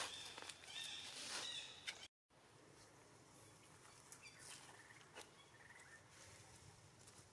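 Quiet outdoor ambience with soft rustles on dry leaves and a few short, high animal calls in the first two seconds. After a brief dropout the sound is fainter, with occasional soft clicks and faint short chirps.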